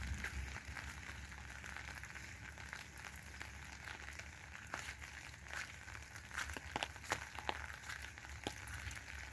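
Faint crackling outdoor ambience with a low rumble near the start and scattered short clicks and ticks, more of them in the second half.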